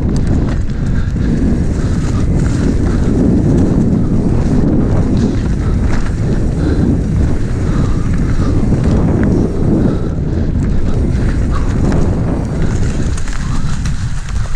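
Wind rushing over the microphone of a mountain bike's point-of-view camera on a downhill run over a dirt and gravel trail, with the tyres crunching and the bike rattling over the bumps.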